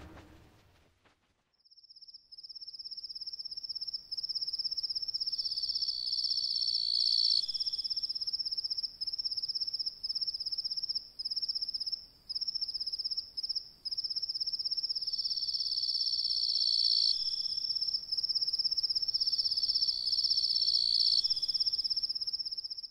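Crickets chirring in a steady, fast-pulsing high trill that starts about a second and a half in and drops out briefly a few times. A second, steadier insect trill, slightly lower, joins it three times for a second or two.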